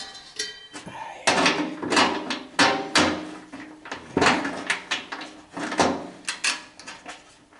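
Irregular sharp metal clanks and rattles, about half a dozen, as the sheet-metal blower housing and squirrel-cage fan wheel are handled with a nut driver.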